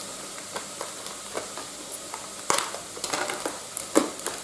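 Leek and bacon sizzling steadily in a frying pan, with several light clicks and knocks of kitchen items being handled, the sharpest about two and a half and four seconds in.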